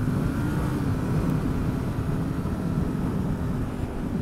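Adventure motorcycle engine pulling on the throttle along a gravel road, its note rising slightly about half a second in and then holding steady, over a low rumble of wind on the microphone and tyres on gravel.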